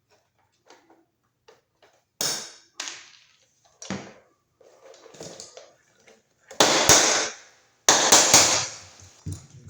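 Hand-work on a receptacle and surface-mount electrical box: a few faint ticks, then sudden scraping and rattling, with a sharp knock about four seconds in and the loudest two bursts of scraping near the end.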